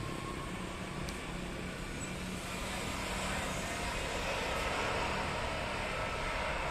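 Jet engine noise from a Boeing 777-300ER's GE90 engines at takeoff power: a steady rush that swells a little partway through.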